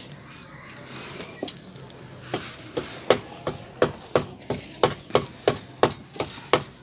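A quick, even series of sharp knocks, about three a second, starting about a second and a half in, as lumps of dry sandy cement mix are handled and crumbled by hand.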